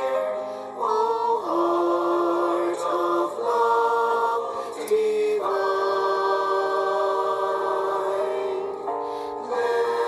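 A slow hymn sung in a choir-like blend of voices, on long held notes that move to a new pitch every second or two.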